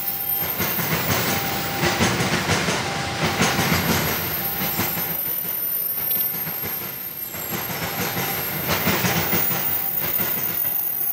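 A freight train of empty container flat wagons rolling past, its wheels clattering over the rail joints in a steady clickety-clack over a continuous rumble.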